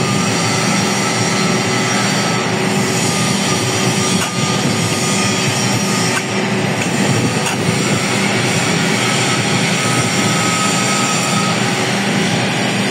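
Milling machine with a slotting attachment running, its tool bar stroking in and out of a bronze bushing to cut internal splines: a loud, steady mechanical clatter and hum of the machine's drive.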